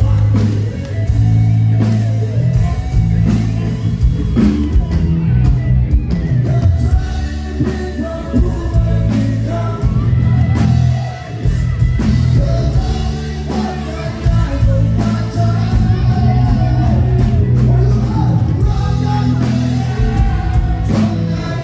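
Live rock band with a male vocalist singing into a microphone over electric bass, guitar and drums, amplified through a stage PA, with heavy bass.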